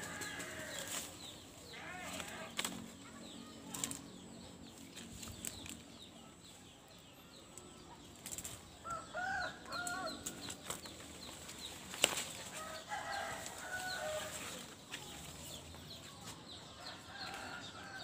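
Small birds caught on bird-lime sticks fluttering their wings in short rustling bouts. Chickens cluck briefly about halfway through and again a little later.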